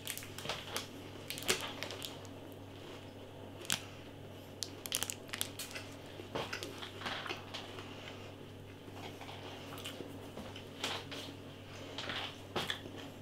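Someone chewing a crunchy chocolate, nut and toffee bar close to the microphone: irregular soft crunches and crackles, spaced unevenly.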